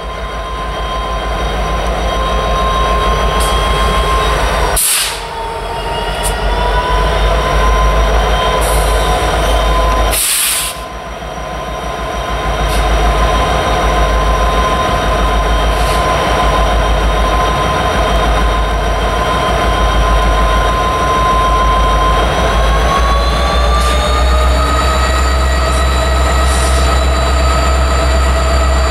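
Norfolk Southern 6814, a former Burlington Northern EMD SD60M, leads an SD60 past with a freight train. The diesel locomotives are running, with a steady high whine that rises slightly in pitch near the end, and two short hisses about five and ten seconds in.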